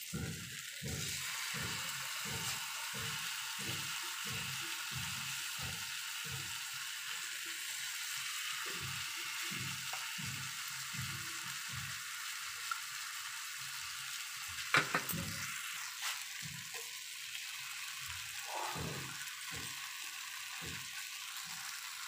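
Cauliflower florets coated in mustard-masala paste shallow-frying in oil on a flat tawa, a steady sizzle. Over it comes a soft wet squelching about twice a second as more florets are worked through the paste by hand, and a single sharp click about fifteen seconds in.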